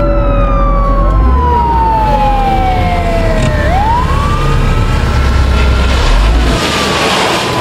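Ambulance siren wailing in slow falling and rising sweeps over a low vehicle rumble. The rumble drops away near the end as a hissing noise swells.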